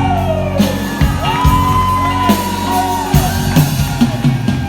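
Live country band playing the closing bars of a song, with a long lead line that bends up and down in pitch over steady bass notes and drum hits.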